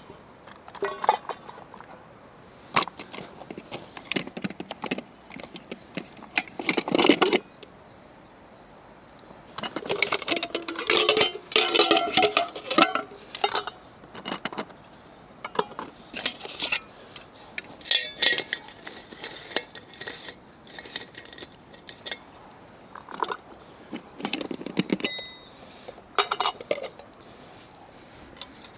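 Metal pieces of a Trangia camping cookset clinking and knocking together in irregular bursts as they are handled, with a short ringing tone near the end.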